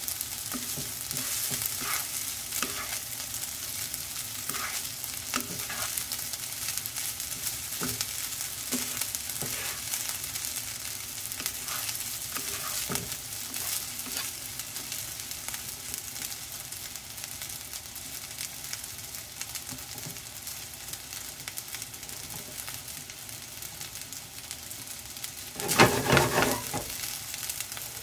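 Vegetable basmati fried rice sizzling in a nonstick frying pan as a wooden spatula stirs and scrapes through it, with scattered light scrapes and taps. A brief louder burst of noise about two seconds before the end.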